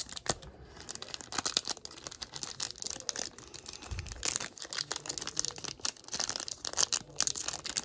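Crinkling and crackling of a Panini Mosaic trading-card pack's silver wrapper, handled and pulled at in many short, irregular crackles while it resists being torn open.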